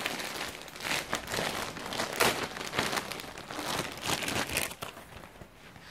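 Packaging crinkling and rustling in irregular crackles as it is unwrapped by hand, thinning out near the end.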